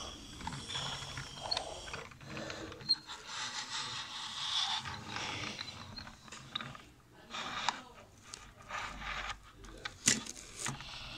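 Toy buses being pushed and handled on a tabletop: a gear-like whirring and ratcheting from the toy's wheels, with scattered clicks of plastic. A sharp knock about ten seconds in is the loudest sound.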